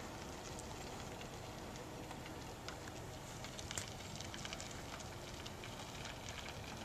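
Faint steady outdoor background noise with many small clicks and crackles scattered through it.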